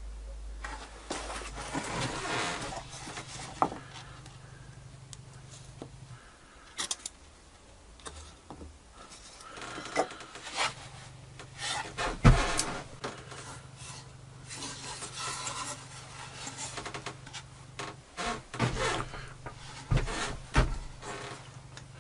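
Plywood edge being sanded by hand with a sanding block: spells of rubbing strokes of abrasive on wood. Between them a few sharp knocks of the wooden part being handled, the loudest about halfway through.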